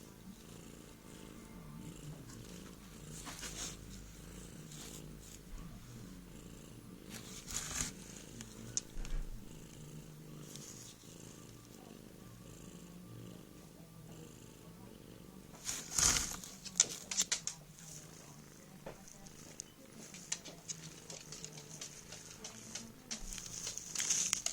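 A cat purring steadily, with scattered rustling and clicking noises over it, the loudest around two-thirds of the way through and again near the end.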